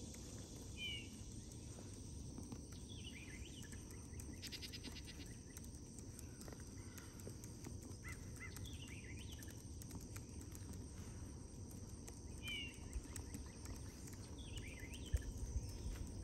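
A bird singing short chirping phrases that repeat every few seconds, over a steady low outdoor rumble, with a brief buzzy trill about four and a half seconds in.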